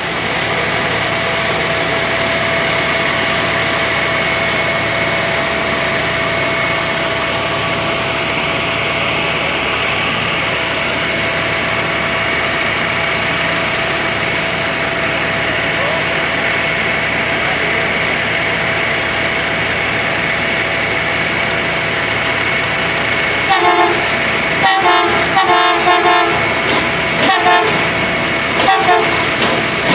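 Diesel engines of railroad maintenance-of-way machines running steadily with a constant hum. In the last few seconds a series of short horn toots sounds over them.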